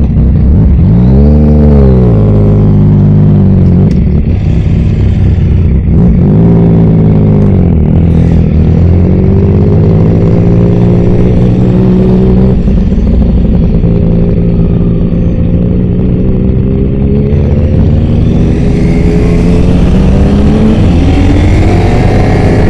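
Motorcycle engine under way: a quick rev rising and falling about a second in and again around six seconds, then running at steady revs, and building into a long, smooth rise in revs over the last few seconds.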